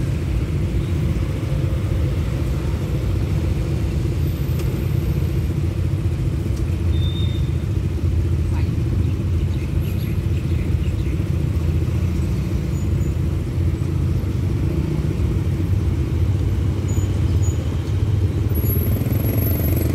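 Idling motorcycle and car engines: a steady low rumble, with another vehicle moving up near the end.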